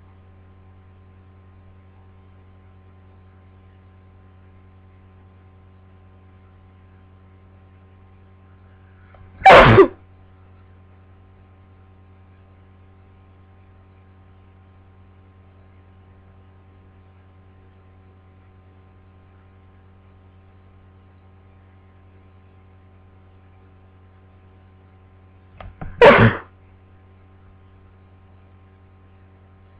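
A person with a head cold sneezing twice, each sneeze short and loud: once about a third of the way in, and again near the end after a brief catch of breath. A steady electrical mains hum runs underneath.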